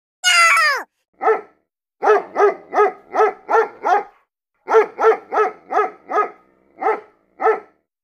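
A dog barking: about fourteen sharp barks at roughly three a second, in two main runs with short gaps, then two single barks near the end. It is preceded at the start by a short cry falling in pitch.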